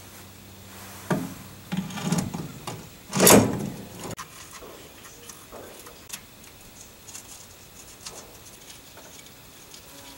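Handling noises of a replacement brake master cylinder being picked up and handled: a few knocks and rubbing sounds, one loud brief scraping rustle about three seconds in, then scattered light clicks.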